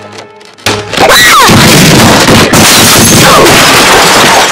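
A cartoon character's scream boosted to extreme, clipped distortion in an earrape edit. It bursts in about a second in as a harsh wall of noise at full volume and cuts off near the end.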